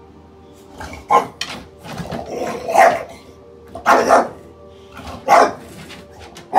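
A bulldog barking repeatedly at the television, about six loud barks roughly a second apart, the one near the middle drawn out longer.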